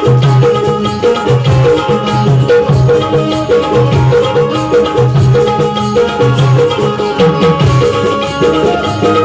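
Loud music with a steady, repeating drum beat and percussion, played over a PA sound system.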